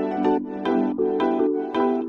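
Background music: a light melody of quickly struck notes, about three a second.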